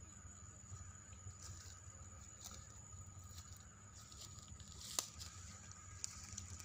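Faint handling noise: small clicks and light rustles as fingers work a small object, with one sharp click about five seconds in. Under it runs a steady high insect drone.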